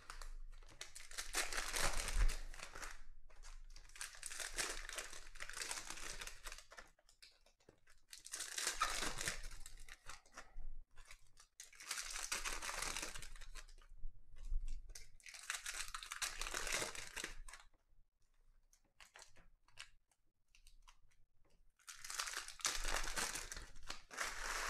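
Foil packs of Panini Mosaic football cards being torn open and crinkled by hand, in about six bursts of a few seconds each with short pauses between and a longer lull about three-quarters of the way through.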